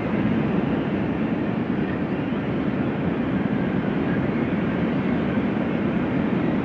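Steady rushing wind, a loud even roar with no pitch to it.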